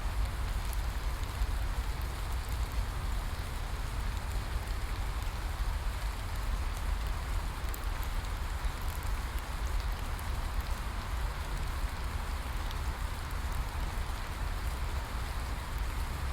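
Steady rain falling, with a low rumble underneath and scattered light ticks of individual drops.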